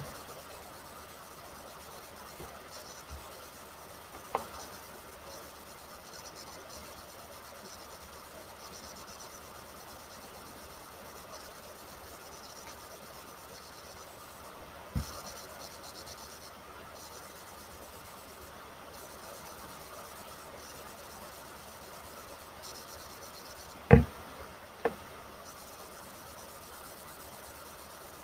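Low, steady rubbing and scratching noise with a few isolated sharp knocks, the loudest two close together near the end.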